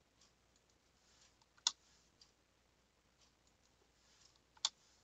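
Two sharp clicks at a computer, about three seconds apart, with a few faint ticks between them, made while editing text with the keyboard and mouse.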